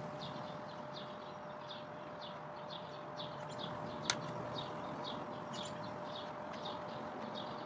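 Short high chirps repeating about twice a second, over a steady faint hum, with one sharp click about four seconds in.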